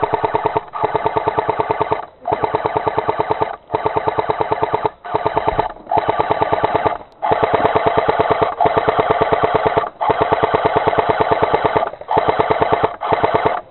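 Airsoft M1919 heavy machine gun replica firing on full auto in about ten long bursts of rapid, evenly spaced shots, with short pauses between the bursts.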